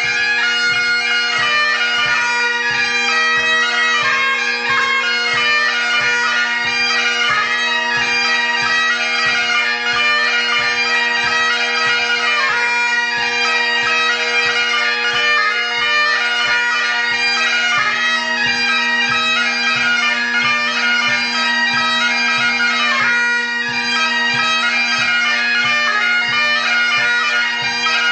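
Great Highland bagpipe playing a tune: a melody on the chanter over the steady, unbroken hum of the drones.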